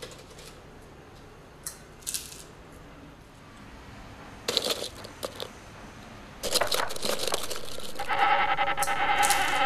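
A hand rummaging through tube-shaped crisps in a plastic tub, the snacks rustling and crunching in short bursts. About eight seconds in, a steady, loud buzzing drone begins and carries on.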